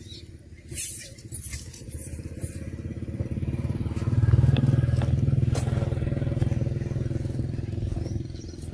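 A motor vehicle's engine running close by, a low pulsing rumble that grows louder about four seconds in and then holds steady. A few crackles of dry leaves come in the first seconds.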